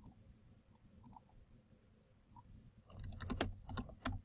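Typing on a computer keyboard: a few scattered keystrokes, then a quick run of several keystrokes about three seconds in.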